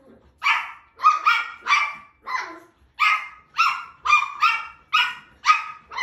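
Shetland Sheepdog puppy barking at its own reflection in a mirror: a quick run of about a dozen short, high-pitched puppy barks.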